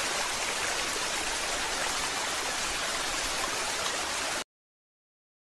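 Steady rushing-water sound effect, an even hiss like a stream or heavy rain, that cuts off suddenly about four and a half seconds in.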